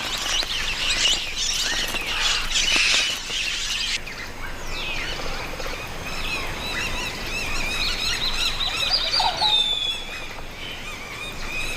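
A flock of small parrots, mealy amazons and rose-crowned parakeets, calling over one another with harsh chattering screeches. About four seconds in the sound changes abruptly to sparser, higher chirps and whistles.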